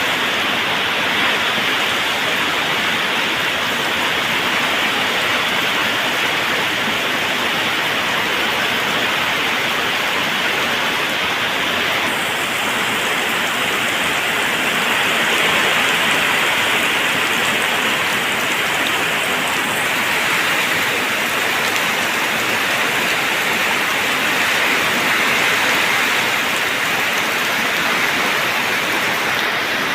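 Waterfall water rushing and splashing in a steady, unbroken roar.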